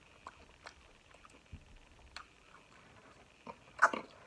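Eating sounds: scattered soft clicks and wet ticks of fingers picking through sauce-covered shrimp and potatoes. Near the end comes a louder wet mouth sound as a piece goes into the mouth.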